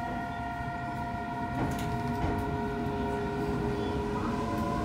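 Mitsubishi IGBT VVVF inverter and traction motors of a JR East EV-E301 battery electric train, heard inside the car as it starts off from standstill: several steady whining tones over a low rumble that slowly grows louder, one tone beginning to rise in pitch near the end as the train gathers speed.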